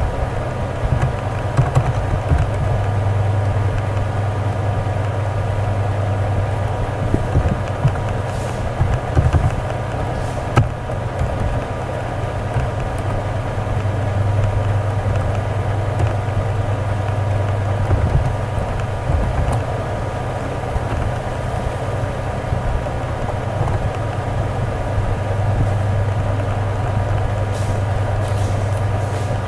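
Steady low hum with a faint buzz over it, with a few light clicks of keyboard typing.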